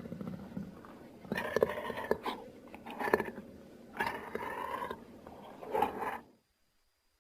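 Creature sound effects of a big-cat-like animal: four short, rough growling calls one after another, then the sound cuts off suddenly to silence near the end.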